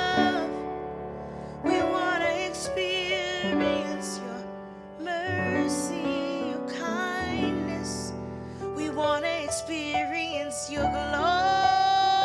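Worship music: piano chords under a singer holding wordless, wavering notes between sung lines.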